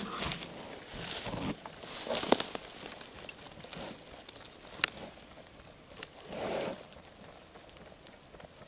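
Black bear foraging with its nose in the leaf litter: short bursts of snuffling and rustling in dry leaves and conifer needles, a second or more apart, with a couple of sharp clicks about two and a half and five seconds in.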